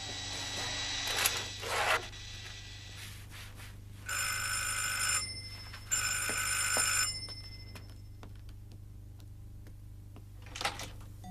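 Electric doorbell ringing twice, two steady rings of about a second each, the second starting just under a second after the first ends.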